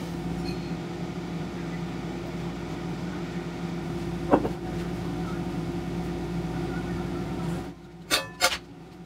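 A steady hum from the pot steaming on the electric stove, with one short sharp sound partway through; the hum drops away near the end. Then the stainless steel stockpot's lid clanks twice, about half a second apart, as it is lifted off.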